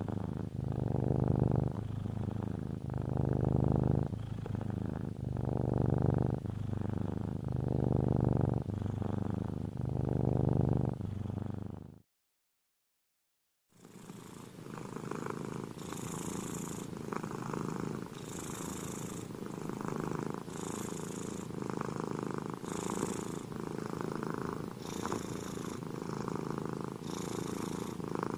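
Domestic tabby cat purring, the purr swelling and fading about once a second with each breath in and out. It breaks off abruptly about twelve seconds in for under two seconds of silence, then resumes softer.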